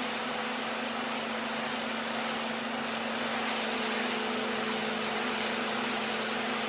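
Pressure washer running: the steady hiss of the high-pressure water jet spraying a car's body, with a steady low hum underneath.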